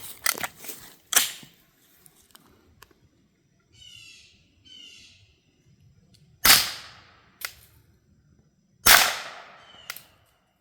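Suppressed 9mm shots from a CZ Scorpion Evo 3 S1 carbine fitted with a Dead Air Mojave 9 suppressor, firing silver-tip rounds loaded just below supersonic. There are sharp reports with a short tail: lighter ones in the first second, then two loud ones a couple of seconds apart in the second half.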